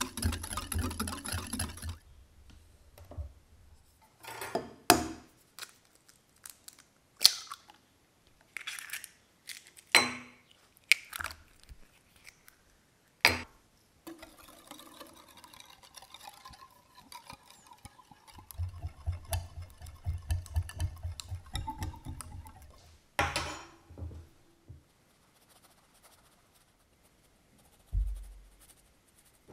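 Hand whisking in a glass bowl: a wire whisk clinking and scraping against the glass, with scattered sharp taps on the bowl and a run of fast, rhythmic whisking about two-thirds of the way through.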